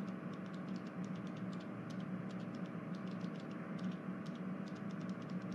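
Low, steady background hiss with a faint hum and scattered faint ticks: room tone with no other sound.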